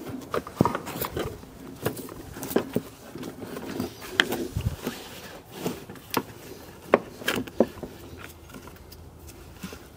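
Irregular clicks, light knocks and rustling as a rubber serpentine belt is worked by gloved hands down past the hoses and hooked onto the crankshaft pulley of a V8 engine that is switched off.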